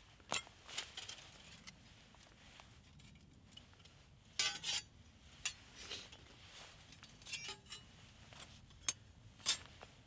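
Metal parts of a hobo stove clinking and clicking together as it is assembled by hand: scattered light clinks, a short cluster about four and a half seconds in, and two sharper clinks near the end.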